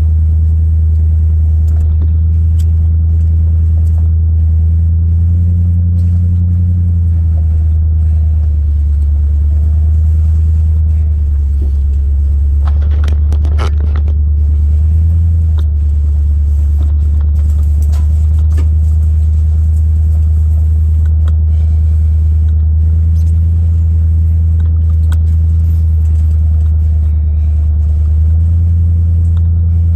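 A vehicle engine running with a steady low drone, shifting slightly in pitch a few times as it is driven. There are a few short knocks and rattles about halfway through.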